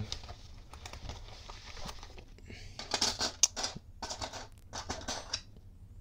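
Thin metal lock picks and tension wrenches being handled and sorted through: light clinks and scrapes in two short clusters, about three seconds in and again around five seconds.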